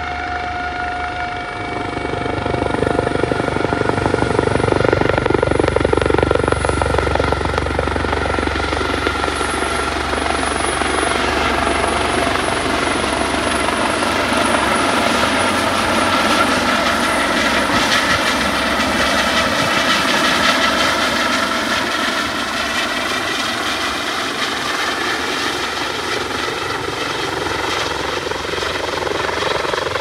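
Eurocopter Dauphin helicopter with a fenestron tail flying low past, its rotor and turbine engines running, with a steady whine over the rotor noise. It gets louder over the first few seconds, then holds.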